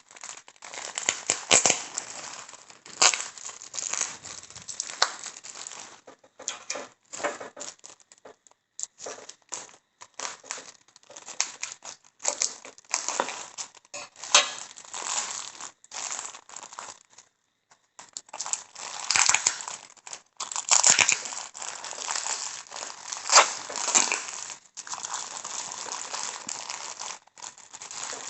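Crinkly packaging handled and pulled open by hand: irregular rustling and crackling that comes in uneven bursts, with a short lull partway through.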